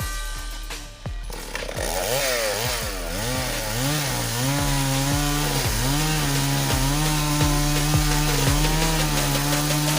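Two-stroke chainsaw starting about a second and a half in, its pitch wavering up and down as the throttle is worked and then settling into a steady high-revving buzz as it cuts wood.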